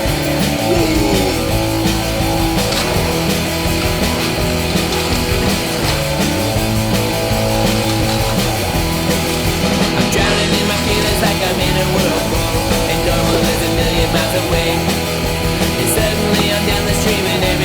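Loud punk rock soundtrack music with distorted guitars.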